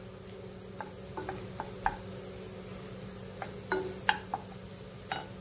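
A cooking utensil stirs egg and vegetable masala in a stainless steel frying pan, giving scattered, irregular clicks and scrapes against the metal, over a steady low hum.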